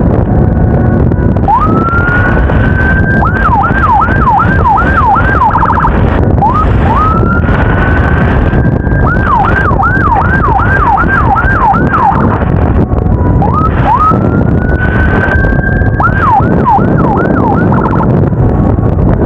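Electronic emergency siren cycling three times through a long rising wail followed by a run of fast yelping sweeps and a short rapid flutter. Steady low rumble of the moving motorcycle and wind underneath.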